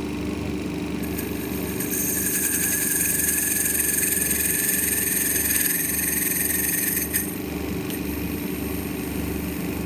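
Hardinge turret lathe running at high speed, its turret turning tool cutting a brass pin down toward 3/16 inch. A steady machine hum runs throughout, with a high-pitched cutting whine that starts about a second in and stops abruptly about seven seconds in.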